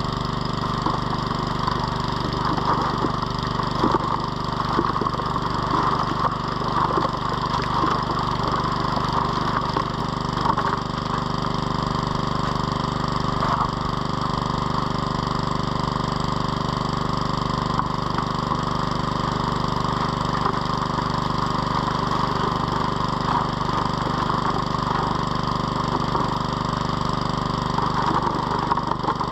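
Small petrol water pump engine running steadily to feed a high banker, with water rushing over the sluice and gravel crackling and rattling through it.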